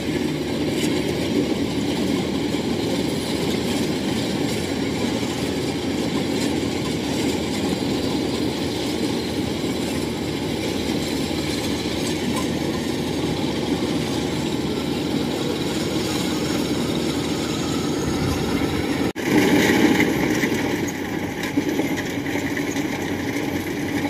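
Kubota DC-95 rice combine harvester's diesel engine running steadily under load, with the clatter of its tracks and cutting mechanism. About 19 seconds in the sound breaks off abruptly and comes back with a different, briefly louder character.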